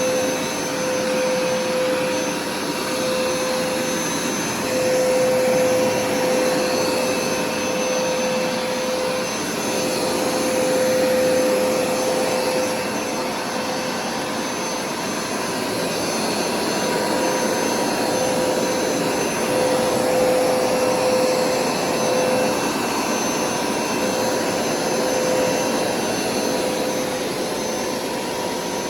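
Hoover carpet cleaner's motor running continuously, a steady rushing noise with a humming whine, swelling and easing in loudness every few seconds.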